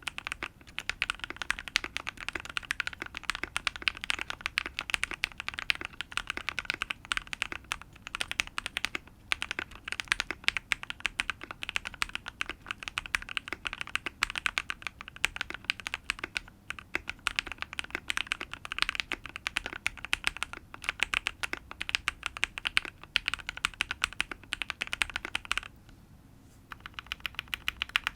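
Typing on a custom KBD67 V3 keyboard with lubed and filmed Everglide Aqua King linear switches, an FR4 plate and a tape mod: fast, continuous keystrokes with a pretty poppy bottom-out. There is a brief pause about 26 seconds in.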